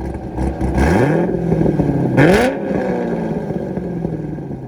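Corvette V8 engine running. It rises out of a low rumble about a second in, is revved sharply once about two seconds in, and falls back to a steady idle.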